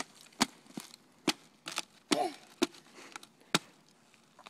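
Thin ice on a frozen puddle cracking and snapping under a child's sneakers as he steps on it, a run of sharp cracks about two a second that stops about a second before the end.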